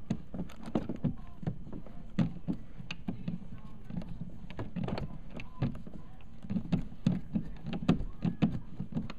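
Hand screwdriver driving small screws into a thin glove-box panel to mount a cigarette-lighter socket: irregular clicks, taps and scrapes of the tool and fingers, several a second.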